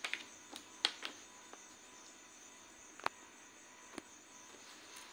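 A sheet of paper being handled and shifted on a cloth-covered surface: a few brief rustles and taps, the sharpest a little under a second in and about three seconds in. Under them runs a faint, steady high-pitched hiss.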